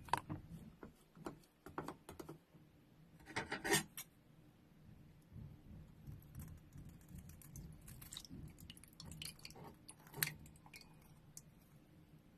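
Slime being squished and worked by hand: a run of wet, sticky crackles and small pops, densest about three and a half seconds in, with another sharp pop around ten seconds.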